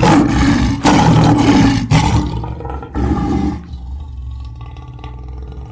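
A loud roar-like sound effect, rising suddenly out of silence in four surges about a second apart, then settling into a quieter ringing tail that slowly fades.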